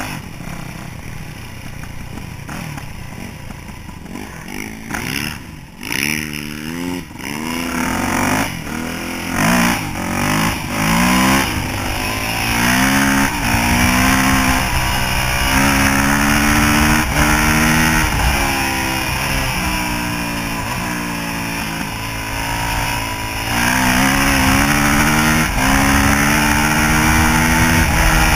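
Yamaha YZ426F four-stroke single-cylinder dirt bike engine, heard from the rider's chest: it runs at low revs, then about five seconds in it pulls away hard, its pitch climbing and dropping back with each of several quick upshifts. It then holds a steady high-revving cruise with a few brief lift-offs, with wind hiss on the microphone.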